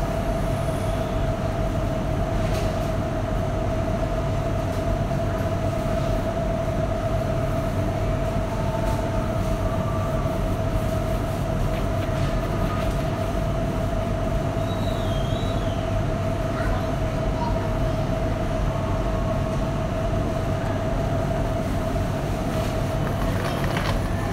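Steady supermarket background ambience: a constant low rumble with a steady humming tone, and a few faint, brief distant sounds.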